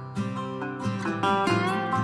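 Background music led by a plucked string instrument, with a note bending in pitch near the end.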